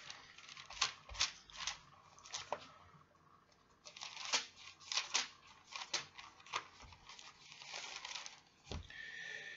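Thin Bible pages being turned by hand: a series of irregular papery rustles and flips, with a longer rustling sweep near the end.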